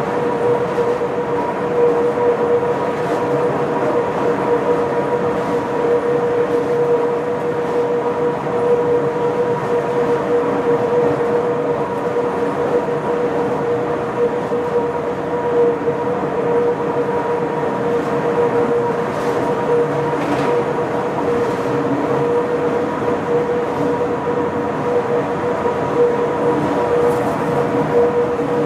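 Electric rack railcar of the Pilatus Railway running steadily on the cog line, a constant whine over an even running noise.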